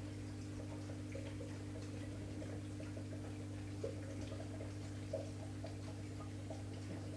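Steady low hum of aquarium equipment with faint scattered ticks, two slightly louder clicks a little past halfway.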